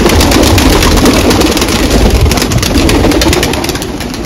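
A flock of domestic pigeons taking off together, many wings flapping and clapping in a loud, dense clatter, with a low rumble underneath.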